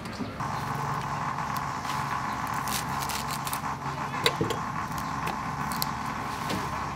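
Fresh lettuce and greens handled on a metal plate, with small clicks and one sharper knock about four seconds in. Under it, a steady motor hum starts just after the beginning and cuts off suddenly at the end.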